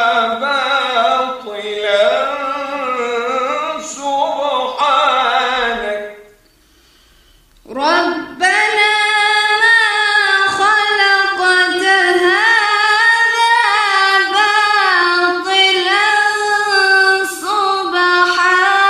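Melodic Qur'anic recitation in tajweed style: a man's voice chants for about six seconds and breaks off. After a short silence a woman takes up the recitation in a higher voice, with long held, ornamented notes.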